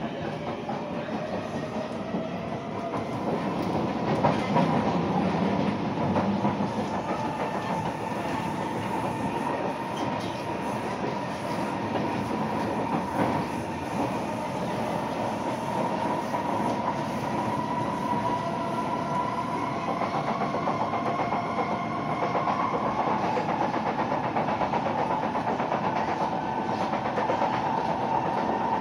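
Kawasaki C151 metro train with Toshiba permanent-magnet synchronous traction motors, heard from inside the car as it runs. The motor and inverter whine climbs in pitch over the first few seconds, then holds a steady tone over the rumble and clatter of the wheels on the rails.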